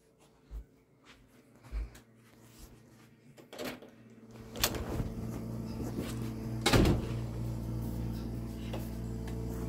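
A door being handled and opened: a few light knocks and knob-and-latch clicks, then a louder knock about seven seconds in. Once the door is open, a steady low hum is heard.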